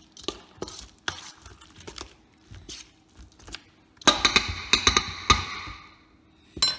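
Metal fork working a thick jerk seasoning paste in a stainless steel bowl, scraping and clinking against the metal. About four seconds in comes a quick run of louder clinks that leaves the bowl ringing, and there is one more clink near the end.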